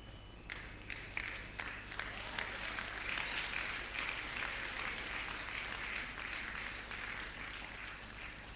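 A congregation applauding: many hands clapping, starting about half a second in, building over the first few seconds and thinning out near the end.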